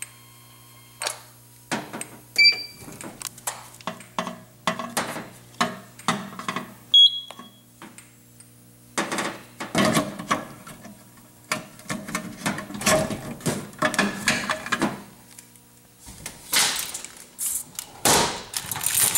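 Irregular clicks, knocks and rustling, with two short high electronic beeps, about two and a half and seven seconds in. A low hum stops about ten seconds in.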